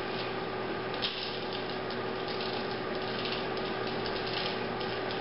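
A steady mechanical hum holding one level tone, with faint scattered crackling and rustling over it.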